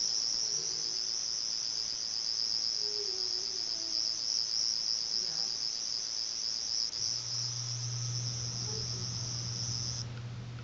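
A toy sonic screwdriver in the 10th Doctor's style, sounding its high-pitched, rapidly warbling electronic buzz while its button is held down. The buzz cuts out and restarts in short bursts near the end. A steady low hum joins about seven seconds in.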